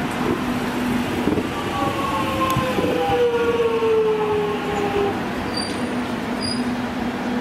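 Electric train slowing, its traction motor whine gliding steadily down in pitch over the rumble of the wheels on the rails. Two short high pips near the end.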